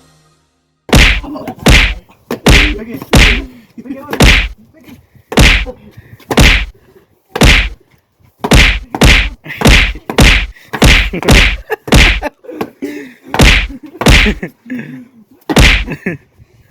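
A long run of loud, sharp smacks, about twenty of them at one to two a second, irregularly spaced.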